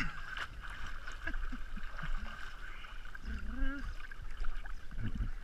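Swimming-pool water sloshing and lapping against a microphone held at the water's surface, with small irregular splashes. A short voice-like sound comes a little past halfway.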